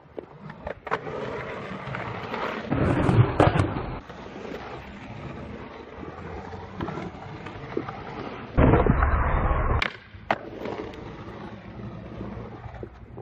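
Skateboard wheels rolling and carving around a concrete bowl, with two louder rushes of about a second each, about three seconds in and again about nine seconds in, and a few sharp clacks of the board.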